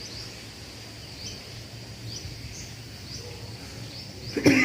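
Faint high chirps from a bird, each a short upward flick, repeating about twice a second. Near the end comes a short, loud, strained throat sound from a man pressing his fingers into the hollow of his throat, the start of the cough this presses out.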